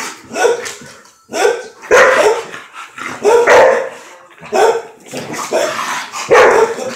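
Dogs barking during rough play: a run of loud, repeated barks, about one to two a second.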